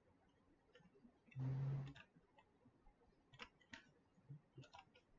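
Faint computer mouse clicks, a few spaced apart. A brief, louder low buzz comes about a second and a half in.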